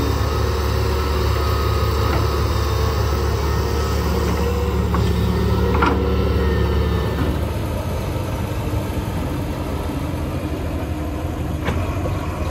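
Excavator's diesel engine running steadily with a deep hum that eases off about seven seconds in, as the load comes off. A few sharp knocks sound through it.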